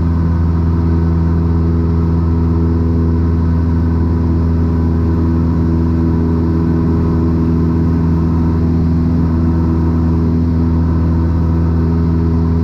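Cessna 172 Skyhawk's four-cylinder piston engine and propeller running steadily at climb power just after takeoff, a constant drone that is not turning a lot of RPMs.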